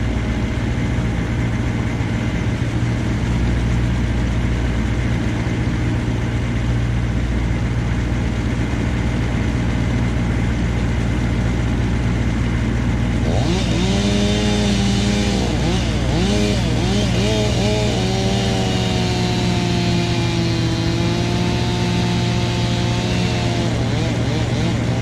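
A machine engine drones steadily. A little over halfway in, a chainsaw revs up and down several times, then runs at a steady high pitch, as if cutting, and drops off near the end.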